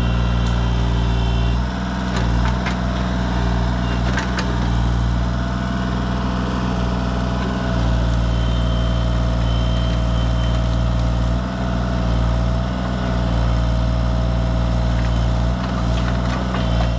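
Excavator engine running steadily, with a steady whine over the low hum and a few sharp knocks.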